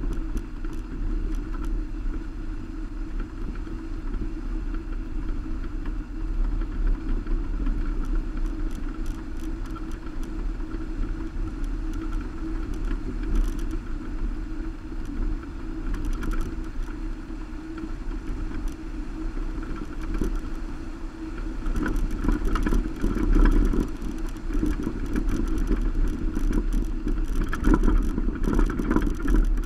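Subaru Baja driving along a gravel road, heard from a camera on its roof rack: steady engine and tyre noise with scattered knocks and rattles from the rough surface. The knocks come thicker and louder from about two-thirds of the way through.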